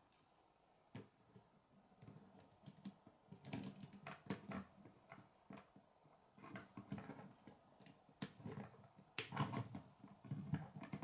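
Plastic K'nex pieces being handled and snapped together: quiet scattered clicks and light rattling, busier about four seconds in and again near the end.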